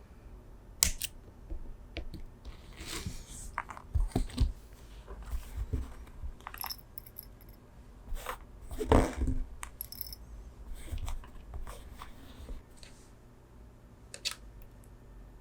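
Irregular small clicks, taps and snips from tools and parts being handled while diodes are soldered onto the keyboard's switches, with one louder knock about nine seconds in.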